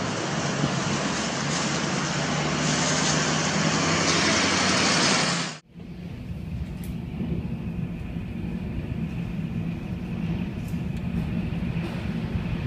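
Loud, steady rush of tornado wind and rain that cuts off abruptly a little before halfway, followed by a quieter low rumble of storm wind and rain heard through glass.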